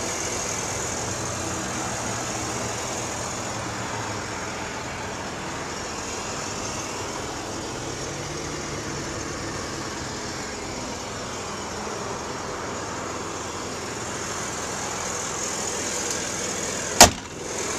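Chevrolet Silverado's 5.3-litre Vortec V8 idling steadily under the open hood. Near the end the hood is slammed shut with one loud bang.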